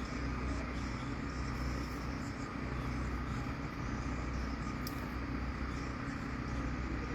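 Steady low background hum with a faint, thin high whine, unchanging throughout.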